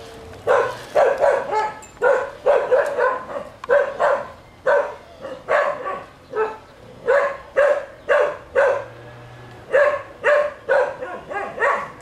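A dog barking over and over, short sharp barks at about two a second, with a brief pause about nine seconds in.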